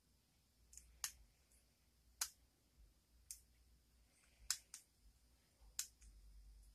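Lock picking tools working the pins of a Steel Pinnings challenge lock: about six sharp, irregular clicks, with near silence between them.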